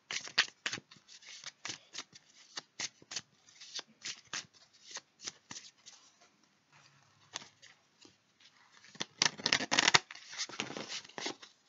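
Tarot cards being shuffled and handled: a run of quick papery flicks and taps, with a denser, louder stretch of shuffling about nine seconds in.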